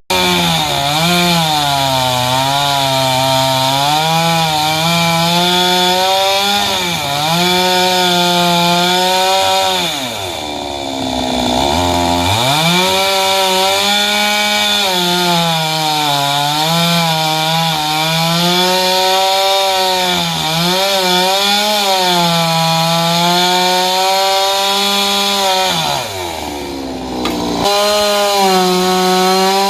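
Two-stroke chainsaw running under cutting load in coconut wood, its engine note wavering as the chain bites. Twice, about a third of the way through and again near the end, the revs fall away briefly and then climb back.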